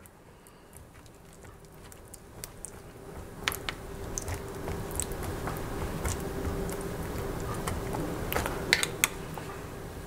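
A metal fork stirring instant noodles in hot water in a plastic bowl: soft wet squishing with light scattered clicks of the fork against the bowl, growing busier after the first couple of seconds. A faint steady hum runs behind it through the middle.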